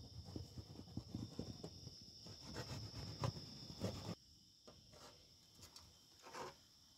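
Metal slotted spoon scraping and prying around the dough seal of an aluminium pot lid to break it open, with scattered light metallic clicks; the scraping stops about four seconds in. Crickets chirr steadily throughout.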